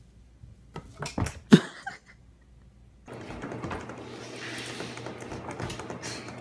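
A few sharp knocks and thumps, the loudest about a second and a half in, as kittens scuffle on a wooden dresser. From about three seconds on there is a steady hiss with light ticks.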